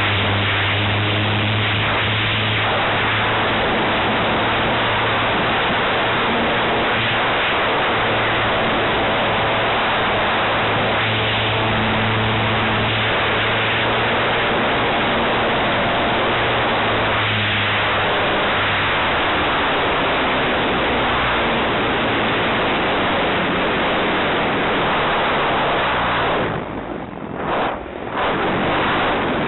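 Airflow rushing over the microphone of a camera riding on an electric RC aerobatic plane in flight, with the steady hum of its E-flite 160 electric motor and propeller underneath. The hum fades a little over halfway through, and the rushing dips briefly twice near the end.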